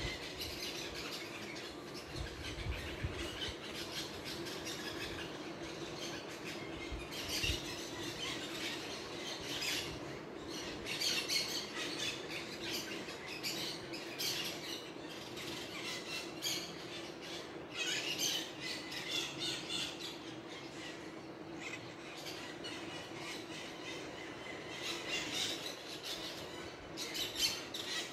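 A chorus of many birds singing and calling, a dense, irregular chatter of short chirps and squawks, over a faint steady hum.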